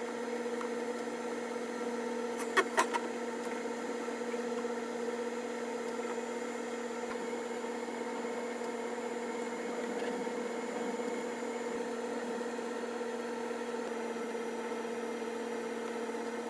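Steady machine hum with a pitched drone, and two sharp clicks about two and a half seconds in.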